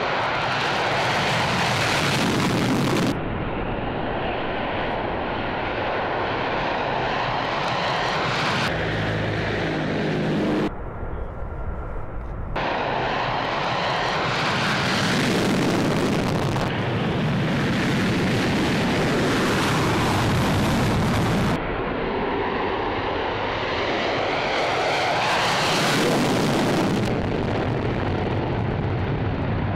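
Jet engines of Tu-160 bombers at full takeoff power with afterburners lit, a loud continuous rumble and rush from aircraft on the takeoff run and climbing away. The sound jumps abruptly every few seconds where separate takeoff shots are cut together.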